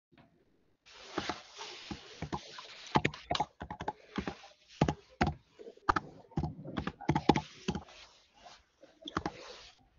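Irregular knocks, clicks and rustling handling noise picked up by an open microphone on a video call. The sound cuts in and out, starting about a second in and stopping just before the end.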